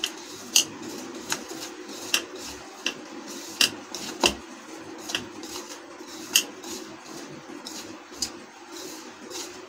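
A hand rubbing oil into flour in a ceramic bowl: a soft scraping hiss with light, irregular clicks against the bowl about once a second. A steady low hum runs underneath.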